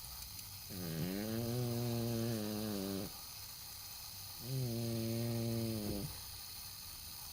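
American Shorthair cat snoring: two long pitched snores, each opening with a quick rise in pitch and lasting about two seconds, with quieter gaps of about a second and a half between breaths. The owner puts the snoring down to its flat nose and weak breathing.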